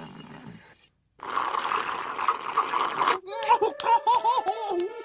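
A short drop-out about a second in, then about two seconds of an even hissing noise. Near the end, the cartoon penguin's high gibberish voice exclaims in bent, squeaky syllables.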